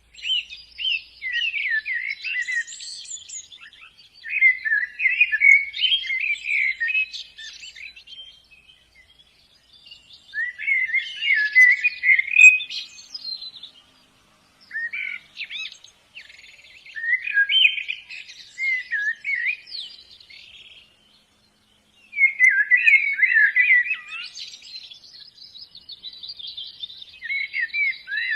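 White-eyes (pleci) singing: runs of fast, high twittering chirps in phrases a few seconds long, separated by short pauses.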